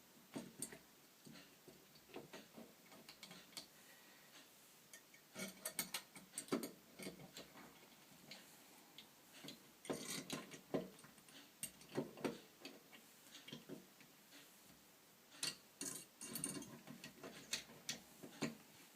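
Screws being driven through a sliding bolt into a wooden door with a screwdriver: quiet clicks and ticks in short clusters, with pauses of a few seconds between them.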